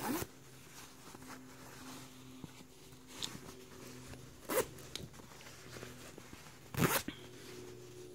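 Ankle-cuff zipper on a pair of jogger pants being zipped and unzipped in a few short strokes: one at the start, one about four and a half seconds in and one about seven seconds in, with a fainter one near three seconds.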